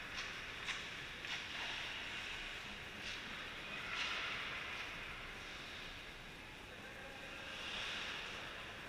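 Ice hockey skates scraping on the ice, with sticks and puck clacking. Several sharp clacks come in the first five seconds, and the scraping swells about four seconds in and again near the end.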